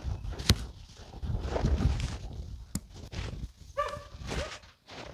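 Backpack straps and buckles being fastened and adjusted, with rustling and a couple of sharp clicks, the loudest about half a second in. About four seconds in a dog gives a short, high yelp.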